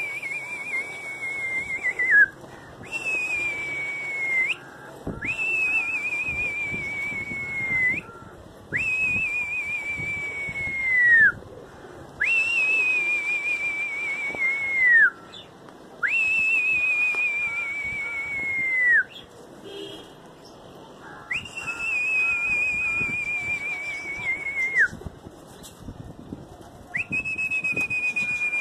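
A pigeon keeper whistling to his flock as it flies overhead: about eight long, high whistles one after another. Each is a held note with a slight waver that sags slowly and then drops sharply at the end.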